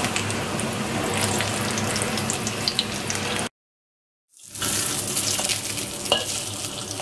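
Pan-fried leek dumplings sizzling in oil in a wok: a steady crackling hiss. It cuts out for about a second midway, then comes back, and a metal spatula gives a single tap against the wok as the dumplings are turned.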